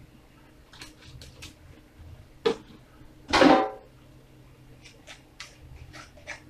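Kitchen handling noises around a stainless steel frying pan: light clicks, a sharp knock about two and a half seconds in, and a louder ringing clatter a second later, then a run of light taps and scrapes as a wooden spatula stirs dry sugar in the pan.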